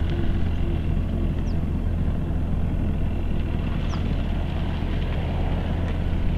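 A car engine running steadily, heard as an even low hum that neither rises nor falls, with a few faint short high chirps over it.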